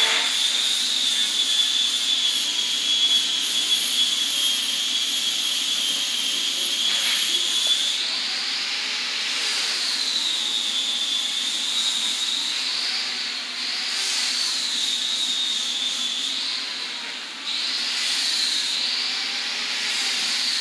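Nitrogen purge gas flowing through the freshly brazed copper line: a steady hiss with a high whistle that is steady at first and wavers up and down in pitch from about eight seconds in.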